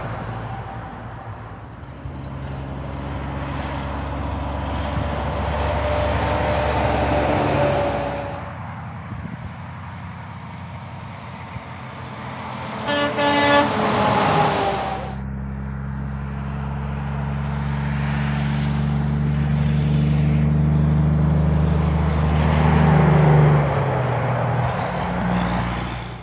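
Semi trucks driving past on a highway. About halfway through, a truck horn honks for about a second and a half as a semi passes close, followed by its diesel engine running loud and steady, rising in pitch near the end before fading.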